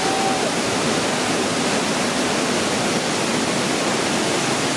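A waterfall close by, its falling water making a loud, steady rushing noise.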